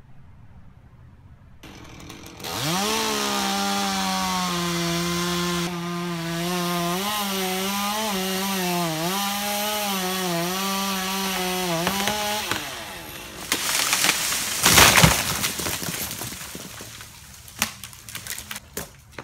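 A chainsaw revs up and cuts through a dead pine trunk, its pitch dipping several times as it bogs under load, then it cuts out. About two seconds later the cut section lands with a loud crash, and small cracks and thuds follow as debris settles.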